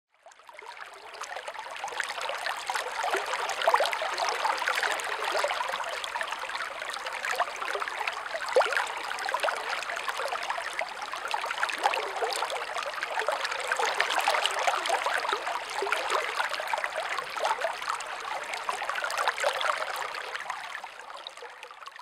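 Stream water running and babbling, a steady rush with fine splashy detail, fading in at the start and fading out near the end.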